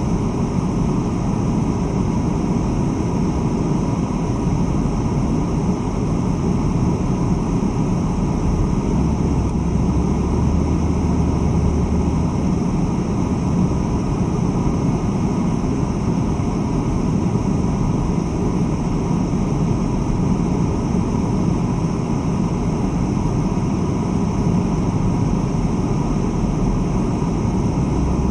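Steady road and engine noise inside a moving car's cabin, a constant low drone with tyre noise and no change in pace.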